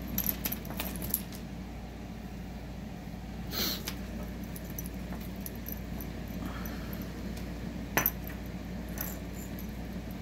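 Light metallic clinks and jingles of tangled costume-jewelry chains and charms being handled and picked apart, scattered through, with a sharper click about eight seconds in.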